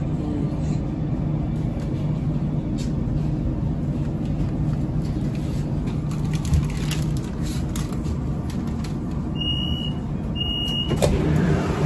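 Shenzhen Metro Line 3 train rumbling steadily as it slows and stops at a station platform. Near the end come two short, high beeps of the door chime, and then a clunk as the doors open.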